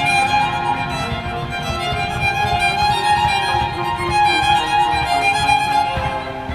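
Music led by a violin, playing a melody of held notes.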